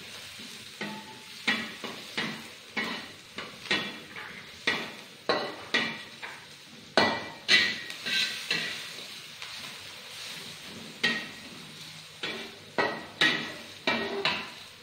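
Metal spatula scraping and knocking against a steel wok while stir-frying, about two strikes a second with a pause partway through, over a light sizzle of salted fish, garlic and shallots frying in oil.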